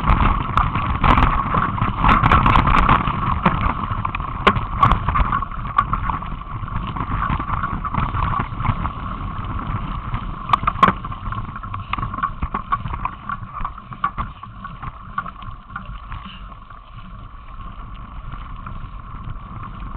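Mountain bike riding over a rough trail: continuous rumble and rattling with sharp knocks from bumps, over a steady hum, easing off and quieter for the last few seconds.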